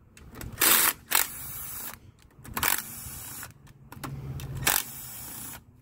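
Cordless Milwaukee impact driver with an E8 Torx socket backing bolts out of a transmission case. Short bursts of hammering come about every two seconds, with the motor running between them.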